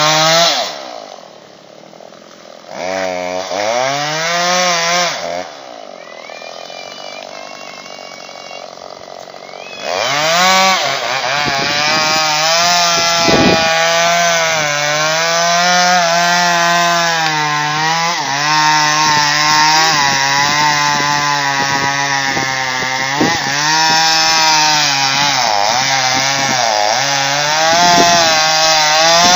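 Two-stroke chainsaw cutting dead white birch. It runs low and quieter for the first ten seconds with one brief rev, then goes to full throttle, its pitch repeatedly dipping and recovering as it bogs under load in the wood.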